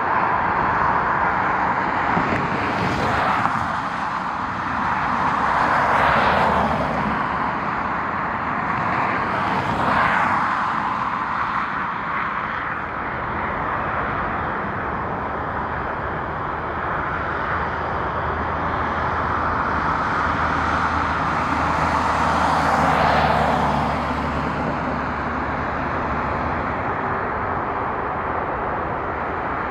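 Steady jet aircraft engine noise with road vehicles passing close by four times, each swelling up and fading away, the last and loudest about three quarters of the way through.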